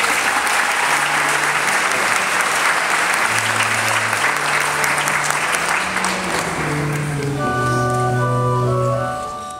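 Audience applauding, with instrumental music of long held notes underneath. The applause dies away about two-thirds of the way through and the music carries on alone.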